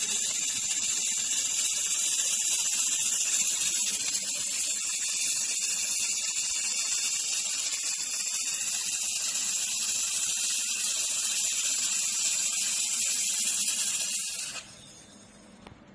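Handheld 3000 W fiber laser welding gun welding 6 mm aluminium: a steady high hiss that cuts off suddenly about a second and a half before the end as the weld stops.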